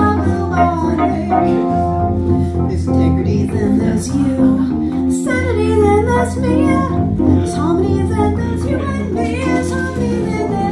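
Live band music: an electric bass guitar and an electric keyboard playing a song, with a woman's voice singing over them through a microphone.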